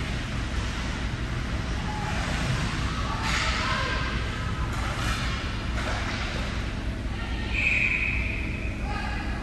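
Ice rink ambience during a hockey game: a steady low rumble with distant players' shouts and the scrape of skates on the ice. A brief, high shrill note sounds about eight seconds in.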